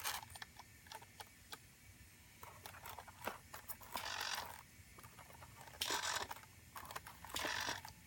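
Small hobby servo motor throwing the points of a model railroad turnout, heard as short noisy bursts about half a second long, the clearest about four, six and seven and a half seconds in. Light sharp clicks come in between.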